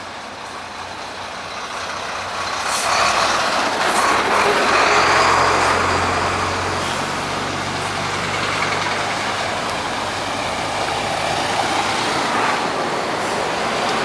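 Heavy diesel trucks and a bus driving past close by, engines running and tyres on the road, swelling to their loudest about four to six seconds in, then a steady traffic rumble.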